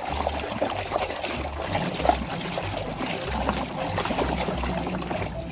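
Water trickling and pouring steadily as muddy plastic toy vehicles are rinsed.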